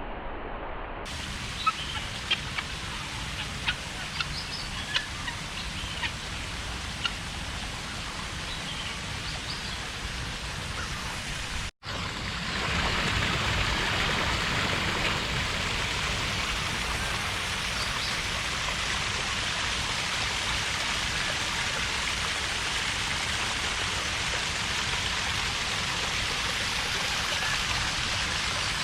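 Ambient noise with scattered short bird chirps. After a cut about twelve seconds in, a louder, steady hiss of falling water takes over.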